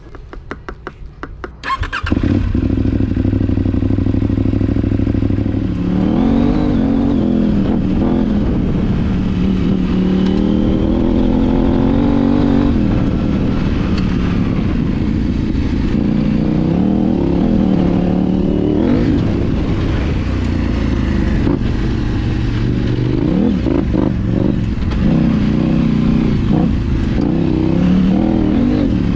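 KTM 790 Adventure R's 799 cc parallel-twin, fitted with an Arrow titanium slip-on and de-cat mid pipe, cranked on the starter and catching about two seconds in. It idles for a few seconds, then runs under load through the gears, revs rising and falling repeatedly.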